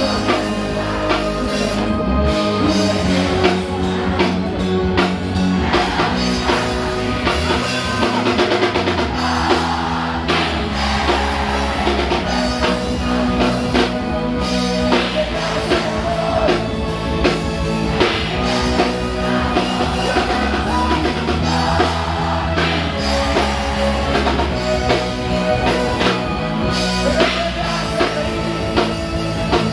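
A band playing a rock song live through a PA system, with a drum kit, guitar and a lead singer.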